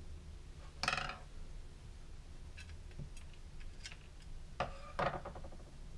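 Small airsoft gearbox parts being handled on a work mat: a few light clicks and ticks, with a brief louder scrape or clatter about a second in and another near the end.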